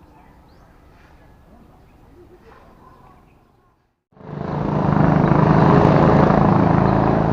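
Faint riverside background, then from about four seconds in a motorized bangka (small boat engine) running loud and close as it passes.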